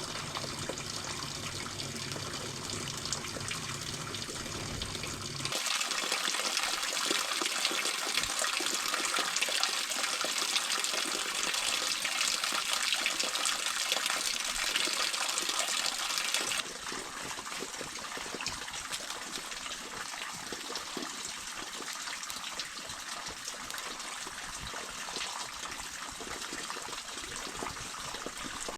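Running water gushing steadily. It becomes sharply louder and brighter about five seconds in and drops back suddenly near the seventeen-second mark.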